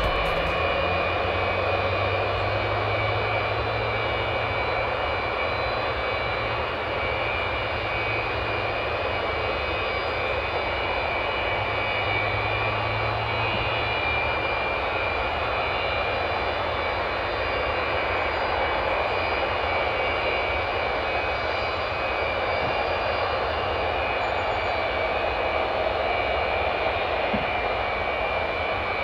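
Jet engines running at low power on the ground, a steady roar with a high whine over it that holds level throughout. The sound comes from the Antonov An-124's four Progress D-18T turbofans, with a Ryanair Boeing 737 taxiing past at first.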